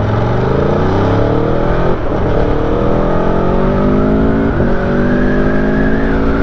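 Aprilia Tuono V4 Factory's 1100 cc V4 engine accelerating, its pitch climbing through the gears. It shifts up twice, about two seconds and four and a half seconds in, and is held to modest revs.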